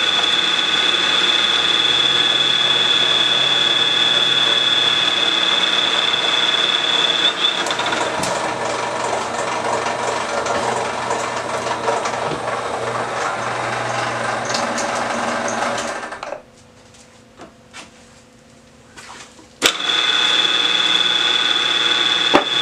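PM-940 CNC mill's spindle running with an end mill squaring the end of a UHMW plastic block: a steady high whine over the cutting noise, which turns rougher about eight seconds in. The sound drops away abruptly for about three seconds near the end, then comes back with the whine.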